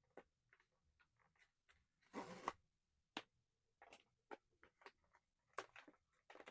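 Faint handling of small plastic pieces and packaging: scattered light clicks and taps, with a short crinkly rustle about two seconds in.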